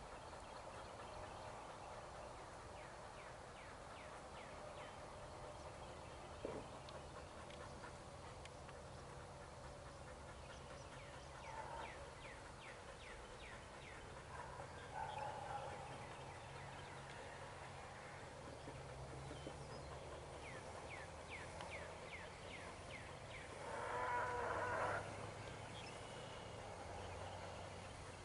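Faint open-air ambience with birds chirping in quick repeated series, and a louder animal call lasting about a second near the end.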